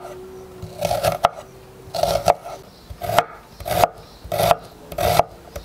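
Chef's knife dicing an onion on a wooden cutting board: repeated cuts, each a crisp crunch through the onion ending in a knock on the board, starting about a second in and coming roughly every half to two-thirds of a second.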